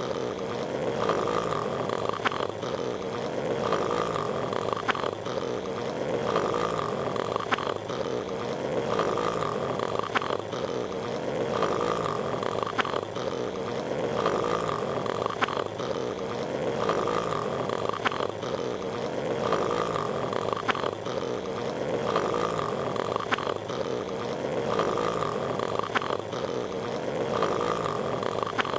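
Patrick Star's cartoon snoring from SpongeBob SquarePants, looped: a snore that repeats evenly about every two and a half seconds.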